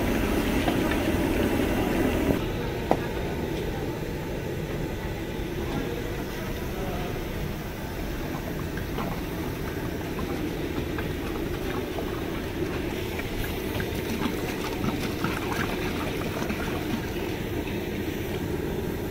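Steady low roar of the burner under a large aluminium pot of boiling mixed dal, with a few light clicks. It drops a little about two seconds in.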